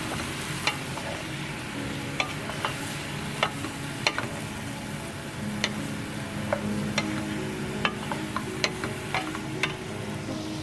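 Chopped bottle gourd being stirred in a pan of spiced oil over low heat: a steady sizzle with a stirring utensil clicking and scraping against the pan about once a second.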